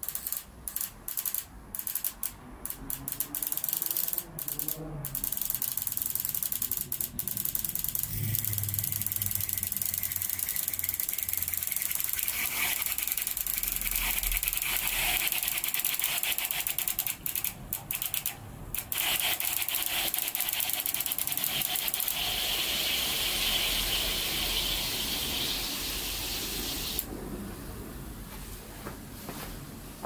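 A rail of six BMW M54 fuel injectors firing water under pressure for a flow-volume test: a few separate clicks at first, then a fast, steady mechanical ticking with the hiss of the spray. It stops abruptly a few seconds before the end.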